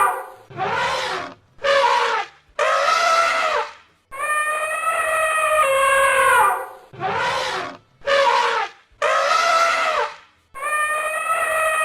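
Elephant trumpeting in a repeating pattern: a long, steady-pitched trumpet blast followed by three shorter, rougher blasts, then the sequence again.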